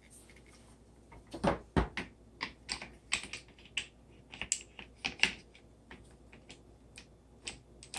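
A pan head being turned and screwed onto a tripod's mounting screw: a run of irregular clicks and light knocks, with a couple of duller thuds about one and a half seconds in.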